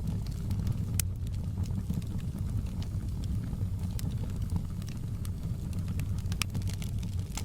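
Wood fire crackling, with scattered sharp pops and snaps over a steady low rumble of burning.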